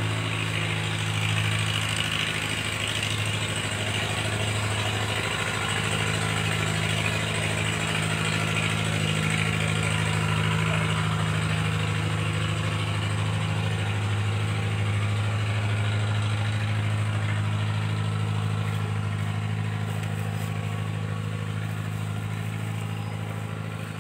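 Hot oil sizzling and bubbling as battered banana fritters deep-fry in a wok, over a steady low motor hum that runs throughout.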